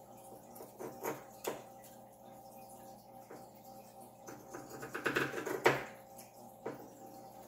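Pinking shears snipping through ironing-board fabric: single snips about a second and a second and a half in, a quicker run of cuts around five seconds ending in the loudest snip, and one more snip near the end.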